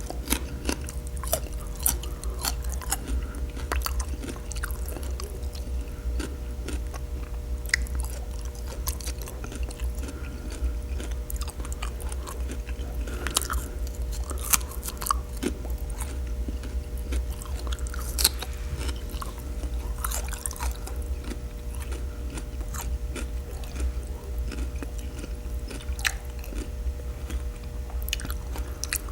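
Close-miked chewing and wet mouth smacking of someone eating birria tacos, with many short sharp clicks scattered throughout. A steady low hum runs underneath.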